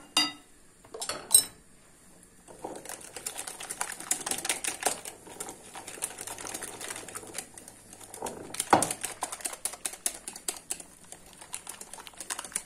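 Wire balloon whisk beating a thick yogurt, egg-yolk and flour mixture in a glass bowl: a fast, dense run of clicks and scrapes of the wires against the glass. A few separate knocks come before it starts, and one louder knock comes about two-thirds of the way through.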